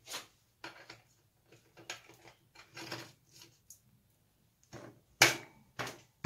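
Small metal clicks and scrapes as a greased steel crank spindle is handled and slid into a BMX bottom bracket's sealed bearings, then two sharper knocks about five seconds in as it is driven home with the palm.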